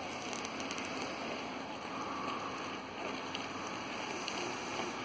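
Steady hiss of snow-making machines spraying artificial snow onto the ski jump's landing slope.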